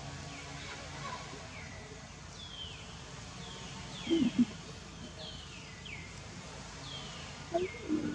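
A bird repeating short whistled calls, each falling in pitch, about two a second. Two brief, louder low voice-like sounds break in about four seconds in and again near the end.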